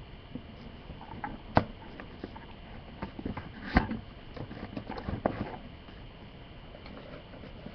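Package being handled and opened by hand: scattered sharp clicks and rustling, the loudest snaps about a second and a half and four seconds in, with a quick cluster just after five seconds.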